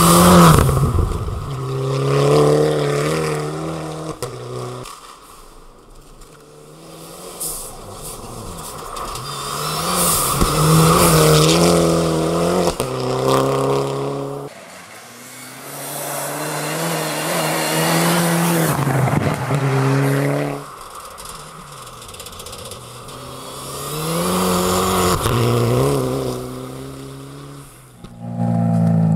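Mitsubishi Lancer Evolution rally car's turbocharged four-cylinder engine revving hard and climbing through the gears on several passes, each pass swelling and fading, with a sudden drop in pitch at each gear change. A rush of tyre and snow noise comes with each pass.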